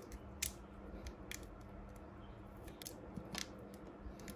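Faint handling noises: a few short clicks and crinkles as black electrical tape and battery wires are worked by hand.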